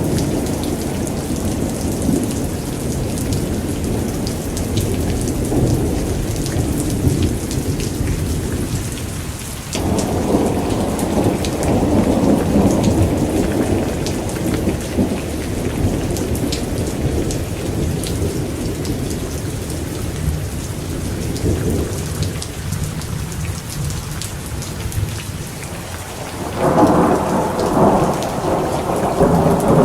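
Thunderstorm: steady rain hiss under continuous rolling thunder. A fresh peal of thunder breaks in suddenly about ten seconds in, and another, the loudest, near the end.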